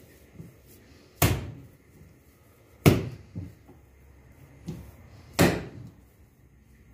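Soft bread dough slapped down hard onto a countertop while being kneaded by hand: three loud thuds about a second and a half to two and a half seconds apart, with softer knocks between them.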